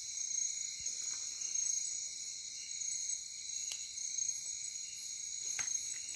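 Night insect chorus, crickets and other insects trilling steadily in several high layered bands, with a couple of short clicks in the second half.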